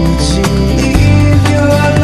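Background music: a loud, steady song with guitar and a regular beat.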